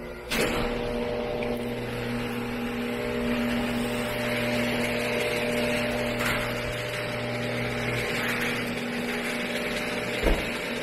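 Electric garage door opener running, raising a sectional garage door: a steady motor hum that starts suddenly, with a single knock about ten seconds in.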